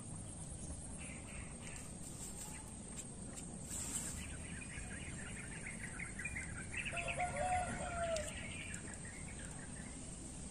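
Chickens calling, with a longer pitched call like a rooster's in the second half, over a steady low outdoor background.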